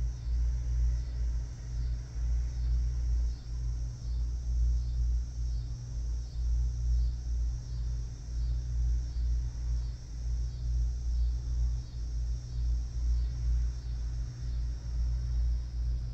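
Outdoor ambience: a steady low rumble that swells and fades unevenly, with a high, thin chirring that pulses about twice a second, typical of insects calling.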